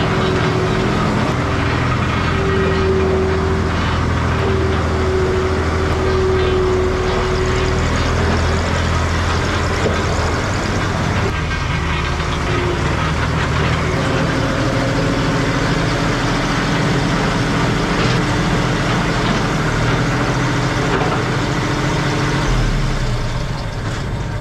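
Skid steer's engine running steadily while the machine is driven and its bucket raised. The engine note shifts in pitch about a third of the way in and again a little past halfway.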